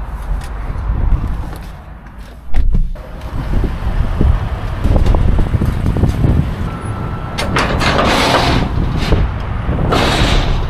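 Vehicle engine running with a heavy low rumble, with two loud bursts of hiss in the second half.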